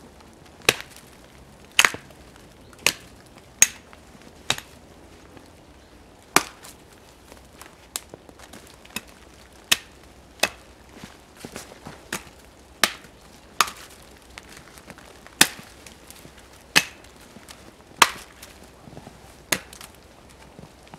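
Axe chopping into a small standing tree trunk: about fifteen sharp blows, roughly one a second, with a few short pauses between runs of strikes.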